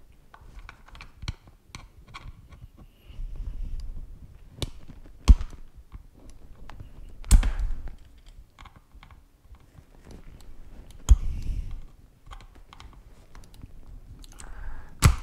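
Irregular plastic clicks and knocks from a screwdriver prying and poking at a wireless mouse's plastic shell, with handling rubs in between and a few sharper, louder knocks.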